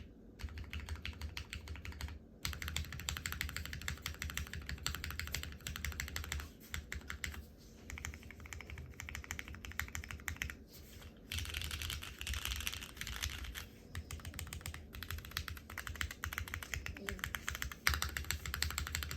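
Fast typing on a Geonworks F1-8X mechanical keyboard with lubed 1989 vintage Cherry MX Black linear switches: a dense run of key clacks, broken by short pauses every few seconds. The board sounds a bit muted.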